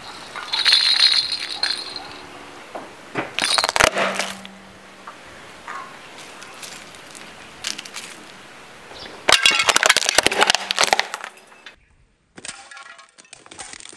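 Pink plastic baby rattle rattling, then cracking and crunching under a car tyre, with broken plastic pieces clattering. Several separate loud bursts of rattling and crunching.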